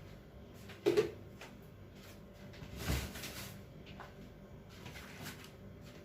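Quiet kitchen handling sounds: a sharp knock about a second in and a short rustle about three seconds in, with a few faint ticks between.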